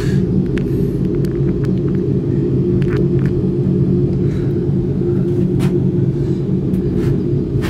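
Steady low drone and rumble inside a moving cable-car gondola cabin as it travels along the haul rope, with a few faint clicks.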